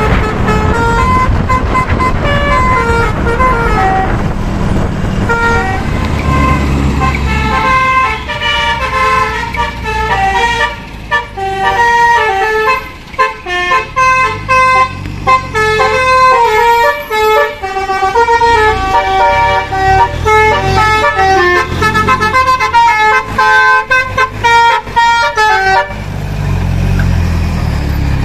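Telolet multi-tone horn on a Mitsubishi Canter HDX dump truck playing a quick melody of short notes, over the truck's engine running. The horn stops near the end, leaving the engine.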